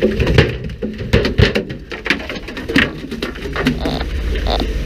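A freshly landed barracuda thrashing against the boat's deck and hull: a quick run of slaps and knocks for about two seconds, then scattered knocks.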